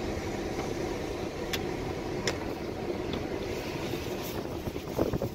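Freight train's hopper and tank cars rolling across a wet road crossing, a steady rumble mixed with tyre hiss from traffic on the rain-soaked road, heard from inside a car. Two sharp ticks come in the middle and a louder knock near the end.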